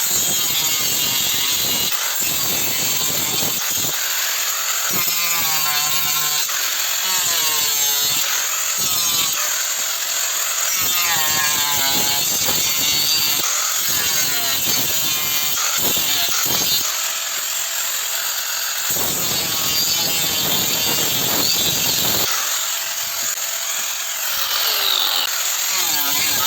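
A saw cutting through a piece of wood, with a few short breaks.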